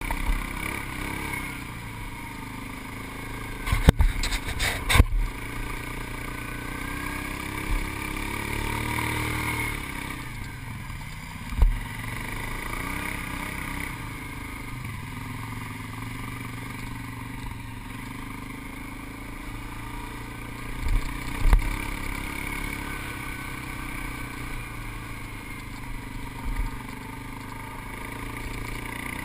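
ATV engine running as the quad rides along a sandy trail, its pitch rising and falling with the throttle. Sharp clunks and rattles come as it hits bumps, a cluster about four to five seconds in and others later.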